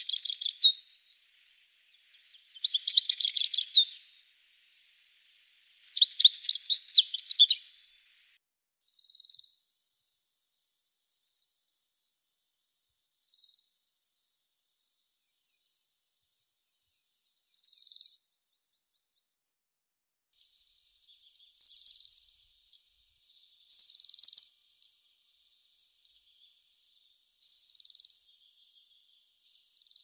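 European goldfinch song: three bursts of rapid, liquid twittering in the first eight seconds. Waxwing calls follow: short, high, thin trilled notes about every two seconds, coming closer together in the last ten seconds.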